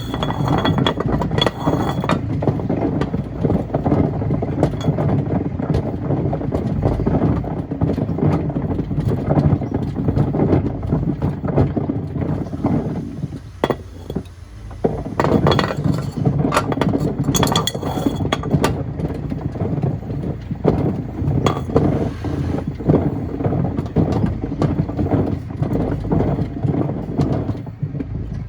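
Stones and pieces of wood clattering and banging against the drum of a Miele washing machine as it tumbles, a dense run of knocks over a low rumble, with a brief lull about 13 seconds in.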